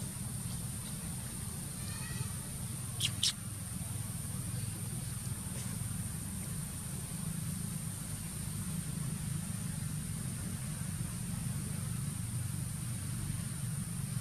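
Forest background: a steady high-pitched drone over a low rumble, with a quick run of faint chirps about two seconds in and two short, sharp animal squeaks just after three seconds.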